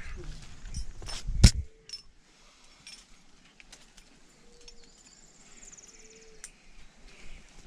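Climbing gear handled on the rock: a sharp knock about a second and a half in, then scattered clicks and the metallic jingle of a quickdraw and carabiner as the rope is clipped. A faint high trill sounds near the end.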